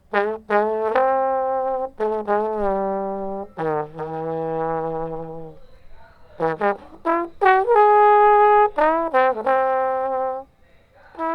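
Slide trombone played solo: a slow melody of held notes, some with vibrato, with short slides in pitch between notes and a brief pause about halfway through.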